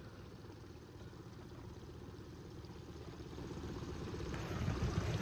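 Small outboard motor on an inflatable dinghy running steadily, getting louder in the last second or so.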